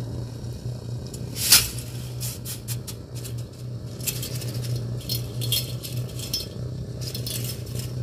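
Dry spaghetti strands clinking and rattling against the rim of a steel pot as they go into boiling water, over a steady low hum. A sharp click about a second and a half in, and a run of light crackly clicks in the second half.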